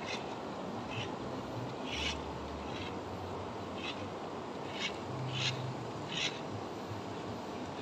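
Steady rush of a flowing river, with about eight short, hissy bursts scattered through it.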